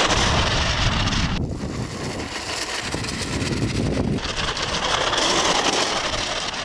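Direct-drive brushless RC snowcat (tracked vehicle) driving on beach sand: a continuous noisy rush of motors and track links, whose high hiss drops away briefly twice.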